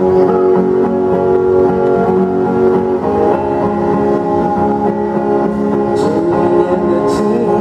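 Band playing the instrumental introduction to a Mandarin pop ballad, led by guitar, with a chord change about three seconds in.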